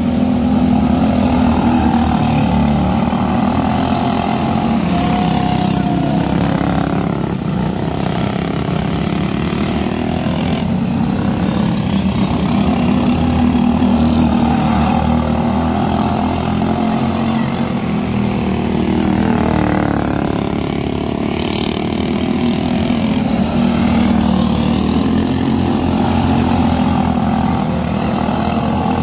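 Several Briggs & Stratton LO206 single-cylinder four-stroke kart engines racing together, a continuous engine drone whose pitch rises and falls as the karts accelerate off the turn and pass by.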